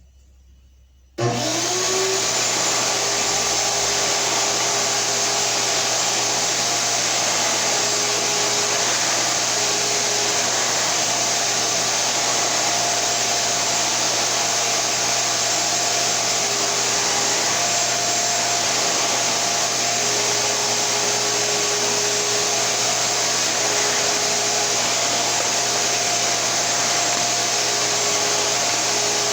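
Shop-Vac Super 1300 7.5-gallon shop vacuum switched on about a second in, its motor spinning up and then running steadily with a loud, even rush of air through the floor attachment.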